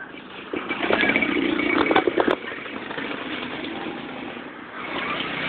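Small motorcycle engines running over a rough dirt road, with a motorized tricycle passing close in the first couple of seconds. A few sharp knocks and rattles come about two seconds in.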